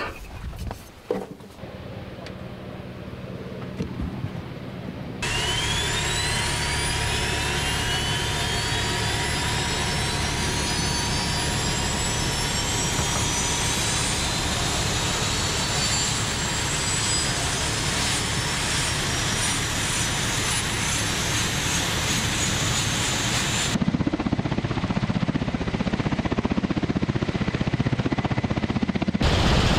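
Ka-52 attack helicopter's turbine engines spooling up. Starting abruptly about five seconds in, several whines rise steadily in pitch for about eighteen seconds over a steady hum. Near the end it gives way to the heavier running noise of a Ka-52 lifting off.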